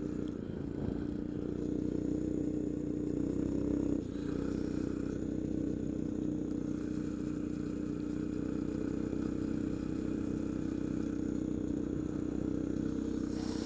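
Coleman CT200U minibike's small single-cylinder engine running steadily under way. It has a brief dip and change in its note about four seconds in, then holds an even pitch.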